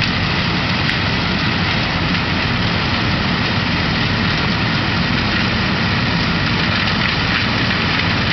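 John Deere 7700 combine running steadily while harvesting corn, a loud, even engine and machinery drone with no changes.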